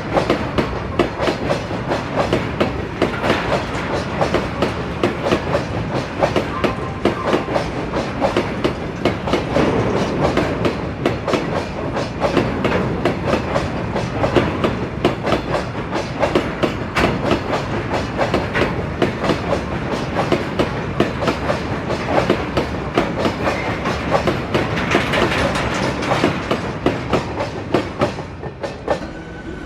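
Passenger train running along the track, its wheels clattering over the rail joints in a rapid, steady clickety-clack over a continuous rumble. It quietens a little near the end.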